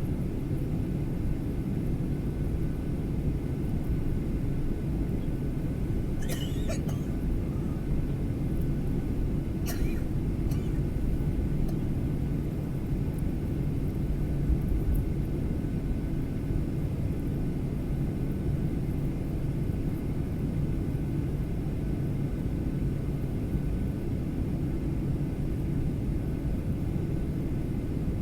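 Steady low rumble of an airliner's cabin on the ground before takeoff, heard from inside. A couple of brief clicks come through about six and ten seconds in.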